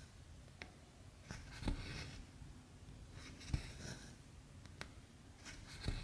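Embroidery floss being drawn through 14-count cross-stitch canvas: three soft rasping pulls about two seconds apart, each with a light thump as the needle and hand meet the fabric, and a couple of faint ticks between them.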